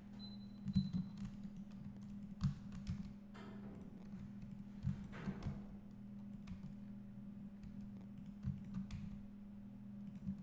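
Scattered clicks of a computer keyboard and mouse, singly and in small clusters, over a steady low hum.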